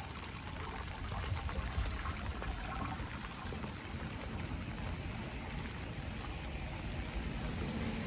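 Steady rain falling on the ground, with the sound of running, pouring water.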